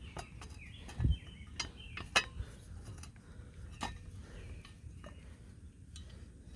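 Sharp metallic clinks and taps of tools and exhaust hardware being handled while the aftermarket exhaust is fitted to the moped: a handful of separate knocks spread over several seconds, the loudest about a second in and just after two seconds.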